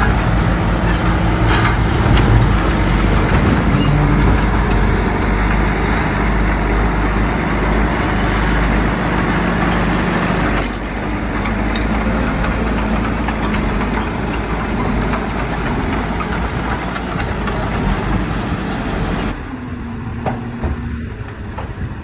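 Heavy diesel earthmoving machinery running under work, with a few sharp clanks. The sound changes abruptly about halfway through and again near the end.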